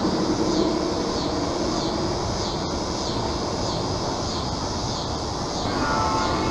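G-scale model train cars rolling past on garden-railway track, a steady rolling rumble. A steady horn tone starts near the end.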